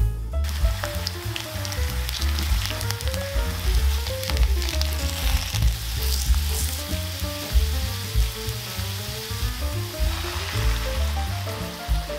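Thin potato slices sizzling in hot oil in a nonstick frying pan, with occasional clicks as tongs and a wooden spatula turn them. Near the end, the sizzle grows louder as beaten egg goes into the pan. A background music track plays underneath.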